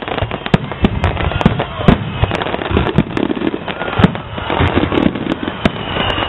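A fireworks display, with aerial shells bursting in a rapid, irregular series of sharp bangs, several each second, and hardly a pause between them.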